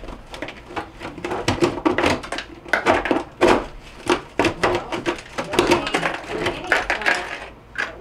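A flat-blade screwdriver chipping and scraping built-up ice from the freezer's drain trough beneath the evaporator coil, heard as a quick, irregular run of sharp clicks and scrapes. The ice has formed because the defrost drain tube is backed up.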